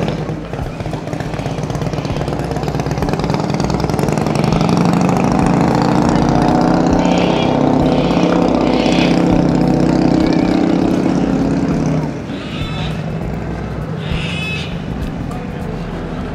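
A vehicle engine running steadily at low revs. It grows louder a few seconds in and drops away suddenly about twelve seconds in.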